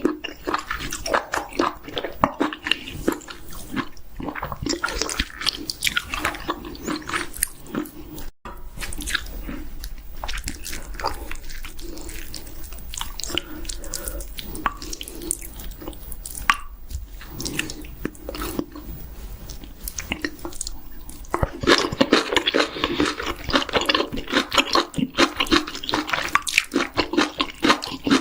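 Close-miked eating sounds of chicken being chewed and bitten: a dense run of wet smacks and small clicks, louder for the last several seconds.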